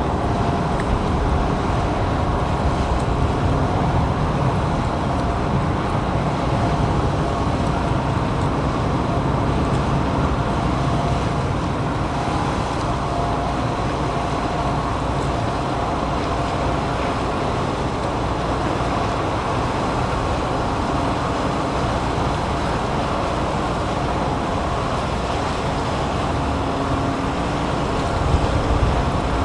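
Engines and propellers of the Ro-Ro passenger ferry Shirahama Maru running as it manoeuvres in to berth: a steady low rumble with a faint steady hum over it, briefly louder near the end.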